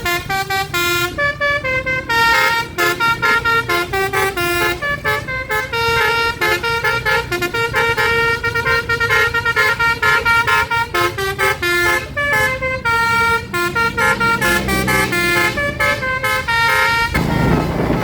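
Telolet Basuri multi-tone bus air horn playing a fast melody of short, quickly changing notes, cutting off about a second before the end.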